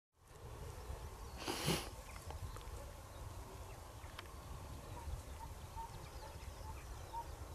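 Hunting dog working through the field: faint rustling over a low wind rumble on the microphone, with one short, louder snort about a second and a half in.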